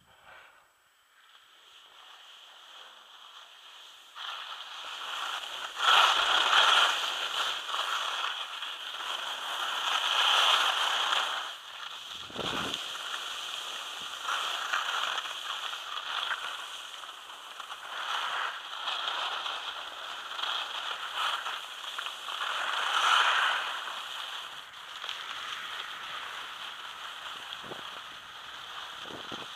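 Skis scraping and hissing over packed snow on a downhill run, starting about four seconds in and swelling and fading with each turn.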